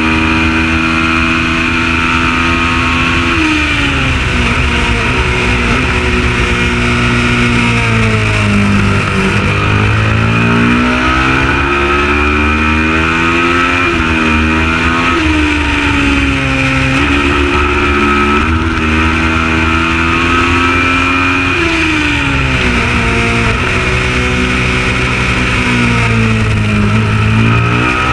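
Kawasaki ER650 supertwin racing motorcycle's 649 cc parallel-twin engine at racing revs. Its pitch climbs and drops sharply again and again as it accelerates through the gears and brakes for corners. Three long drops in pitch come about 4, 15 and 22 seconds in.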